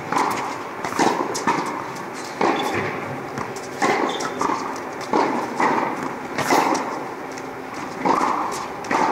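Tennis rally: sharp strikes of racket on ball and ball bouncing on a hard court, one every second or so, each ringing briefly in the echo of an indoor tennis hall.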